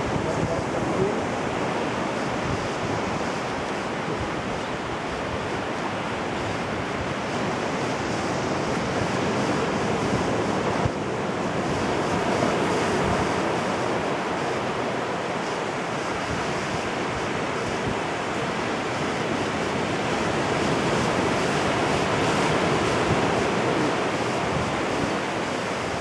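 Small ocean waves breaking and washing up a sandy beach: a steady surf wash whose loudness swells and eases every several seconds as each set of waves comes in.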